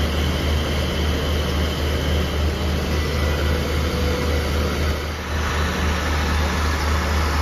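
Diesel engines of a standing passenger train running at idle, a steady low pulsing drone.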